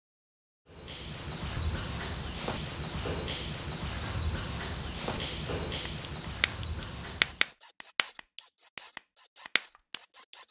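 Scratchy rubbing noise with rapid, repeated swishes and low thumps. It cuts off abruptly about seven seconds in, followed by a string of separate sharp clicks.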